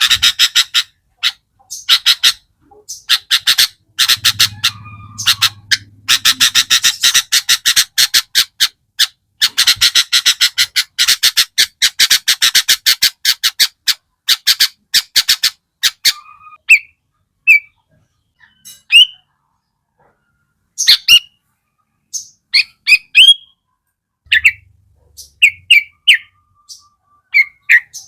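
Sooty-headed bulbul recording: a long run of fast, rattling high notes fired in quick succession, breaking after about 16 seconds into scattered separate chirps and short harsh calls.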